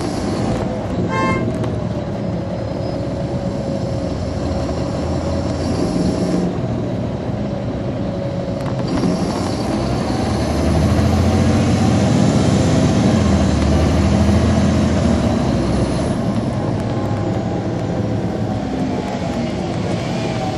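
Caterpillar C13 ACERT inline-six diesel engine of a NABI 40-foot transit bus, heard from on board while the bus is under way. It gets louder and deeper for several seconds in the middle, then settles back.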